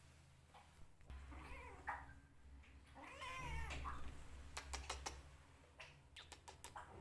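Kittens crying out while they eat chicken, two wavering cries about one and three seconds in, followed by a quick run of sharp clicks.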